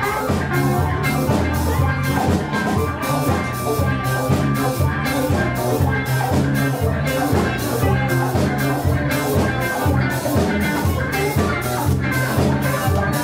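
A live funk and disco band playing a steady dance groove on drum kit, bass, electric guitars and congas.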